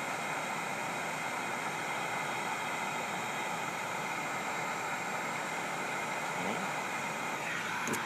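Handheld electric heat gun blowing a steady rush of hot air, its fan running evenly, while heating a solder-seal butt connector so its solder and heat-shrink tubing melt down onto the wire.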